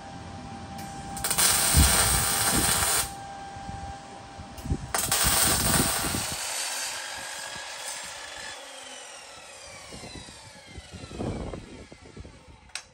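Two bursts of harsh metalworking noise, the second a mitre saw cutting steel tubing. After the cut the saw blade winds down with a falling whine that slowly fades.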